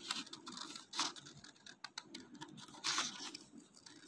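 Scissors cutting through folded paper: short snipping cuts with small clicks of the blades, the two loudest about a second in and about three seconds in.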